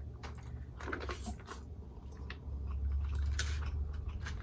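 Close-miked chewing and biting of crisp fried red snapper: a handful of irregular crunches and mouth smacks over a steady low hum.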